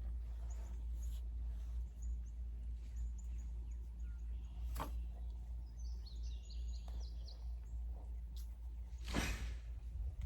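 Outdoor background with birds chirping and twittering faintly over a steady low rumble. There are two short, sharp rustling or scraping noises, one about halfway through and a louder one near the end.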